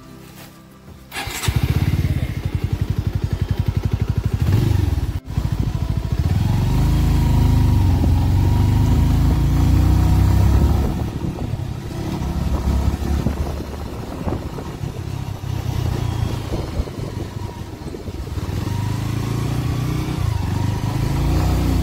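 Motorcycle engine starts suddenly about a second in and idles with an even pulsing beat for a few seconds. The bike then pulls away and runs on the road, its engine note rising and falling with the throttle.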